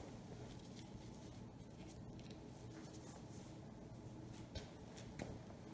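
Faint handling sounds of gloved hands and a screwdriver working at a scooter's handlebar throttle grip, with two light clicks near the end, over a low steady room hum.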